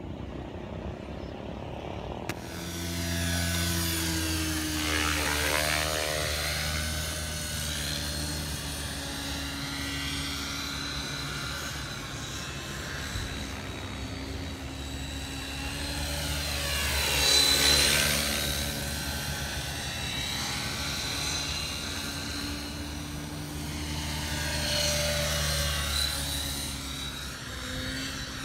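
Align T-Rex 550X electric RC helicopter flying: the brushless motor's whine and the rotor drone. The sound swells and fades three times as the helicopter passes by, and is loudest about two-thirds of the way in.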